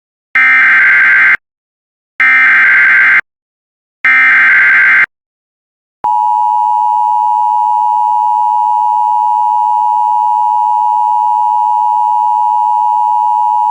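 Emergency Alert System alert: three short buzzy bursts of SAME header data, then, about six seconds in, the steady EAS attention tone, which announces the severe thunderstorm warning about to be read.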